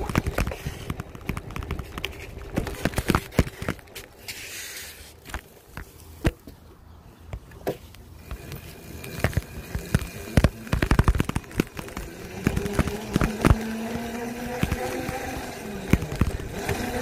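Hard wheels of a green plastic ride-on toy rolling and rattling over a concrete sidewalk, with irregular clicks and knocks as they cross the slab joints. A low steady hum joins in the second half.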